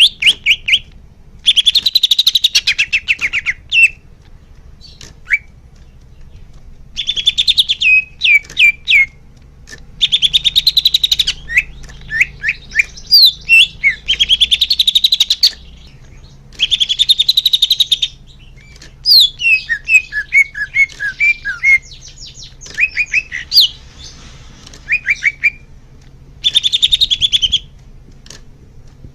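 Cucak hijau (green leafbird) singing: fast, buzzy trills of rapidly repeated notes lasting one to two seconds each, broken by sharp whistled slurs and quick chattering notes, with short pauses between phrases.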